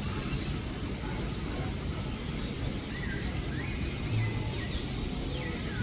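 Steady background din with faint whistled bird calls, gliding up and down in pitch, coming in about halfway through.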